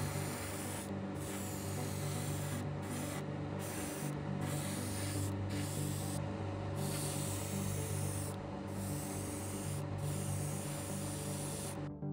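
Airbrush spraying, its air hiss stopping and starting several times as the trigger is released and pressed again, over steady background music.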